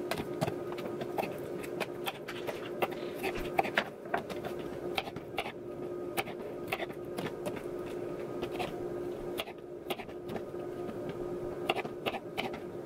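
Serrated kitchen knife cutting cucumber slices into quarters on a wooden cutting board: a string of short, irregular knocks as the blade strikes the board, over a steady low hum.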